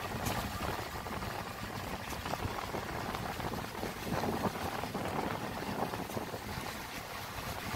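Motorcycle riding down a bumpy dirt road, heard as a steady rush of wind on the microphone mixed with engine and tyre noise, with scattered small rattles.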